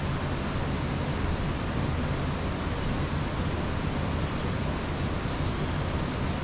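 Steady outdoor background hiss with a low rumble underneath, even throughout, with no distinct events.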